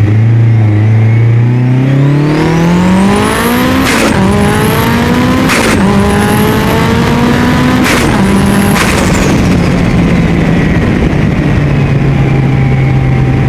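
Mitsubishi Lancer Evolution VIII's turbocharged 4G63 four-cylinder accelerating hard through three gear changes, its turbo whistling as it spools up between shifts. At each shift there is a short sharp burst of compressor-surge flutter, the air driven back through the turbo because the blow-off valve has been deleted. Then the revs fall away and settle toward idle.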